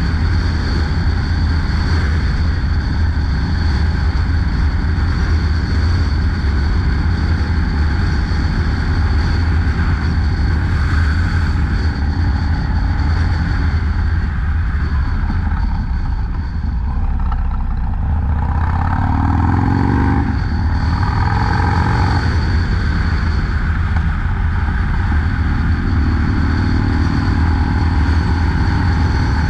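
Harley-Davidson FXDLS Low Rider S's Twin Cam V-twin engine running steadily under way at road speed. About sixteen seconds in, the throttle is eased and the engine note drops, then it rises in pitch as it pulls again.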